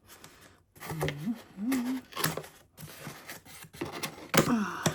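A shipping package being opened by hand: irregular rustling and tearing of the packaging, with a few short hums from the man opening it.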